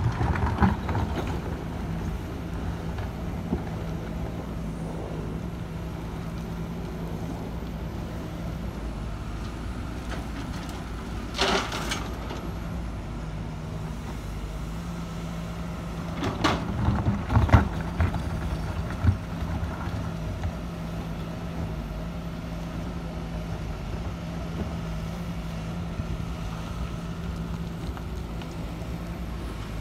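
Diesel engine of a Sumitomo SH210-5 hydraulic excavator running steadily under load while it loads a dump truck. A short hiss comes about a third of the way in. Just past the middle there is a burst of heavy thuds as a bucketful of laterite soil is dropped into the steel truck bed.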